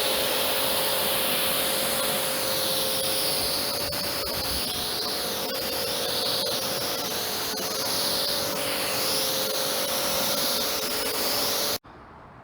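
Kärcher K7 pressure washer spraying: a loud, steady hiss of the water jet over a steady motor whine. It cuts off suddenly near the end.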